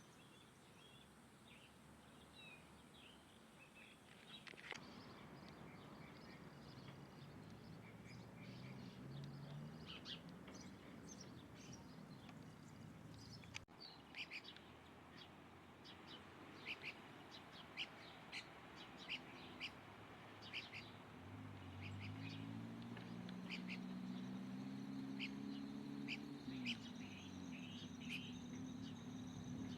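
Small birds chirping, with many short calls throughout, more frequent in the second half. A low hum rises and fades in the background twice.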